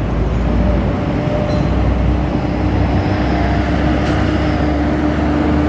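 Steady low engine rumble of a heavy vehicle, with a steady humming tone joining about halfway through.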